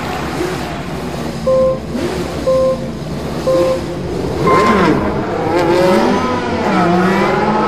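Motor-race start sequence: three short beeps about a second apart, then a higher-pitched go beep. Right after it, race car engines rev and accelerate away, their pitch sweeping up and down.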